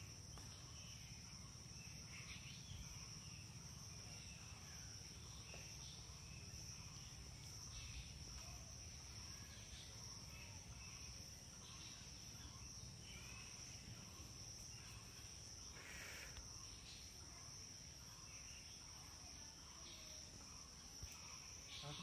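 Faint outdoor ambience of insects, crickets trilling in one steady high-pitched drone, with scattered faint short chirps and a low rumble underneath.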